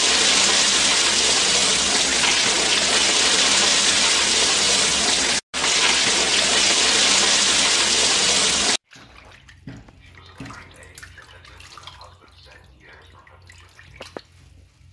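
A loud, steady hiss that drops out for an instant near the middle and cuts off abruptly about two-thirds of the way through. Then, much quieter, water splashing and dripping as hands rinse raw fish in a bowl of water in a sink.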